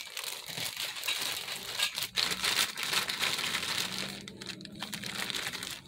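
Plastic packaging crinkling and rustling as it is handled, with a clear zip-lock bag of small white plastic connector pieces lifted out of the box.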